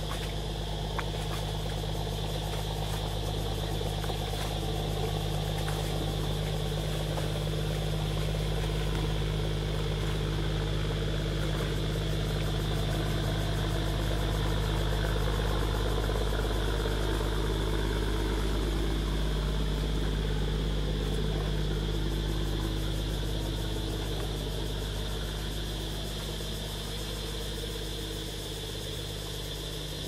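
A motor engine running steadily with a low hum, slowly swelling and then easing off near the end. A steady high-pitched drone sits above it.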